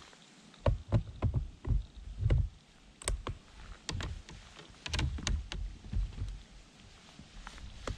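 Irregular knocks and thumps with a few sharp clicks, gear being handled and bumped.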